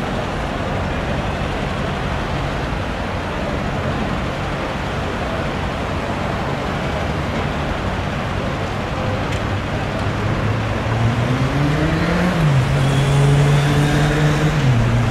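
Steady motorway traffic noise. From about ten seconds in, a heavy vehicle engine comes up over it, rising in pitch, dipping briefly, then holding a higher note before dropping near the end.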